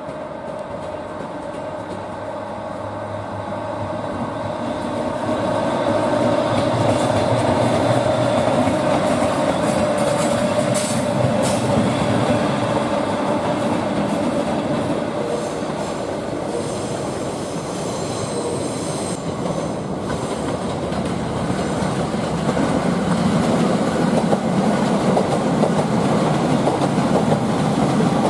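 EF64 electric locomotive running light past at close range, its running noise growing louder over the first few seconds, with a steady hum and the clicking of wheels over rail joints and points.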